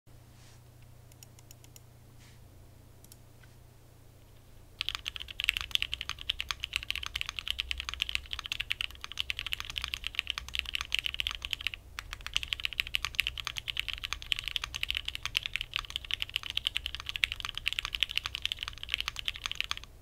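Fast typing on a Bakeneko60 60% mechanical keyboard with an aluminum plate, lubed and filmed Cherry Hyperglide Black linear switches, Cherry-profile keycaps and a polyfill case dampener: a dense, clacky run of keystrokes that starts about five seconds in, with a brief pause near the middle.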